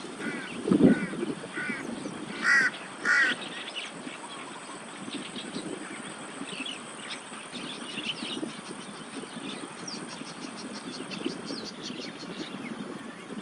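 Birds giving about five short, harsh, caw-like calls in the first three seconds, the last two loudest. A low thump comes about a second in, and a faint fast ticking and a steady background hum run underneath.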